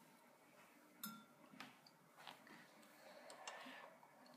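Faint, scattered clicks of small plastic Lego bricks being handled and pressed together, the sharpest about a second in.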